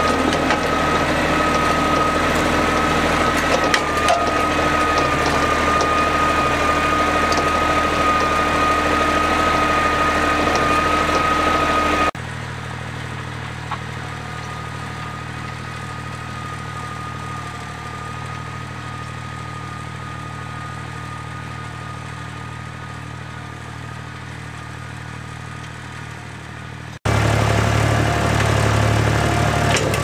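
Siromer 204S compact diesel tractor running steadily under load while working the field, with a steady high whine over the engine note, heard close up. About twelve seconds in it drops abruptly to the quieter sound of the tractor working at a distance, and near the end it is loud and close again.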